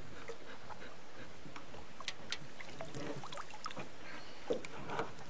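Quiet ambience aboard a small boat on the water: a steady low hiss of water with a few light clicks and knocks.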